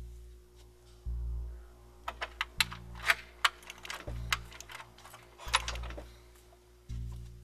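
A metal doorknob and latch clicking and rattling as a hand works it, in a quick, uneven run of sharp clicks from about two seconds in until about six seconds in. Under it, music with a low bass pulse about every one and a half seconds.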